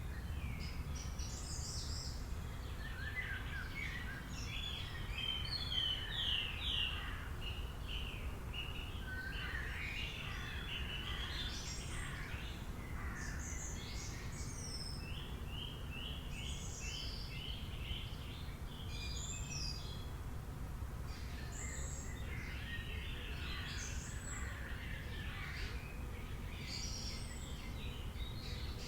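Several forest birds singing and chirping at once, short overlapping whistles and calls with a run of quick repeated notes in the middle, over a steady low rumble.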